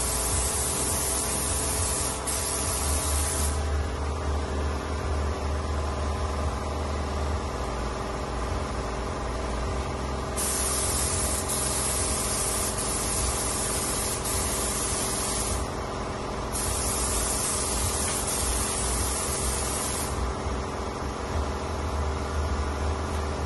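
Air spray gun spraying paint in long passes of several seconds each, the hiss cutting in and out as the trigger is pulled and released. A steady machine hum runs underneath.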